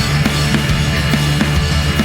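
Loud heavy rock music with distorted guitars and a driving drum kit.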